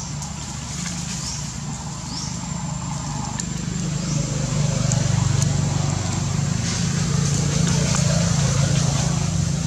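A steady low mechanical hum that grows louder about four seconds in, with a few faint short high chirps above it.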